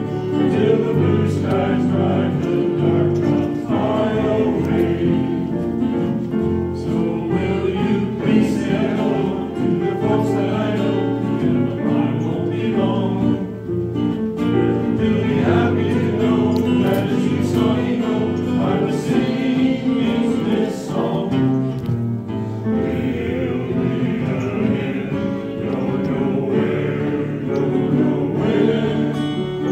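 A men's choir of about a dozen voices singing together in parts, with short breaks between phrases.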